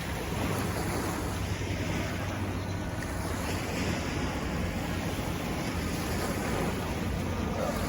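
Surf washing against the shore, with wind rumbling on the microphone.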